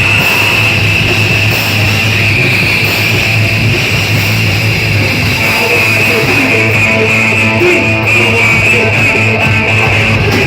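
A rock band playing loud, heavy, guitar-driven music live, without a break.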